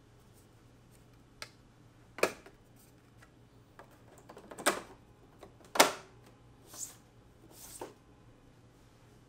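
Handling sounds while unboxing a computer monitor: a handful of separate knocks and clicks from the packaging and parts being handled, the loudest about six seconds in, followed by two short rustles.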